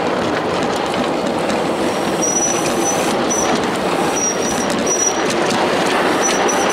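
Ride-on miniature railway train rolling along the track as it climbs a 1 in 30 grade, its wheels running steadily on the rails. From about two seconds in, the wheels give several short, high squeals.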